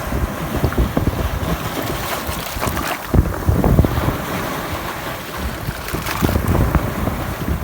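Sea waves washing in, under heavy wind buffeting on the microphone with irregular low rumbles.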